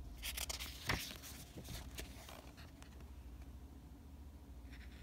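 Paper pages of a paperback picture book being handled and turned: a few short rustles and a sharper tick in the first couple of seconds, then only a faint low hum.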